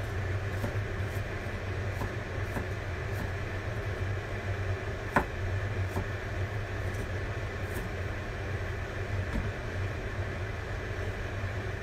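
Kitchen knife slicing a cucumber on a plastic cutting board in scattered, irregular taps, with one sharper knock about five seconds in, over a steady low hum.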